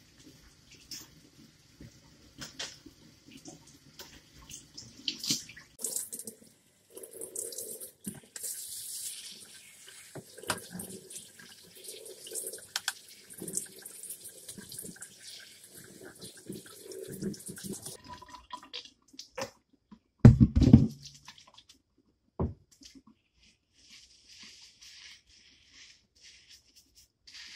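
Kitchen faucet's pull-down sprayer running as hair is rinsed under it, water splashing into the stainless steel sink. The water stops about two-thirds of the way through, and a loud thump follows a couple of seconds later.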